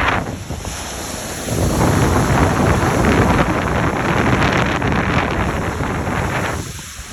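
Strong wind buffeting the microphone with a rumbling noise. It builds about a second and a half in and eases near the end.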